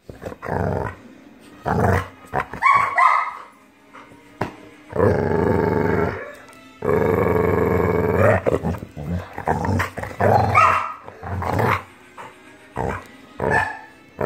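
Pit bull play-growling in repeated drawn-out growls, two long ones in the middle, with shorter sharp sounds between them: a friendly mock attack, not aggression.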